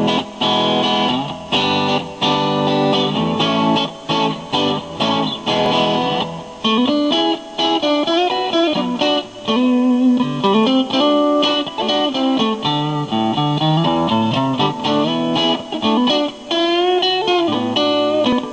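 Electric guitar played through its BG Pups V60 neck pickup into an amp on a crunch setting: strummed chords for about the first six seconds, then single-note lead lines with bent notes.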